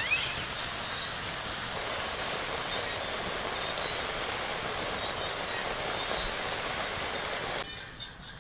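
Steady hiss of water noise, with a short rising call at the very start; the hiss cuts off abruptly near the end.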